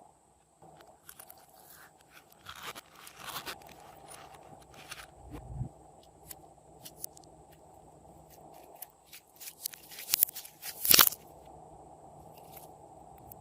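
Clear slime being kneaded and mixed by hand, with sticky crackling and clicking and irregular crunches, loudest in a burst about ten to eleven seconds in.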